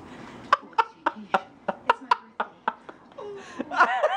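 About a dozen sharp, irregular clicks over the first three seconds, then a person laughing near the end.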